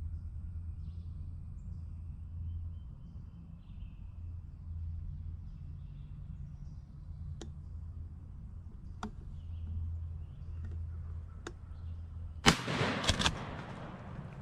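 Field ambience: a steady low rumble with faint bird chirps and a few sharp single clicks, then near the end a loud, brief burst of rustling and clatter lasting under a second.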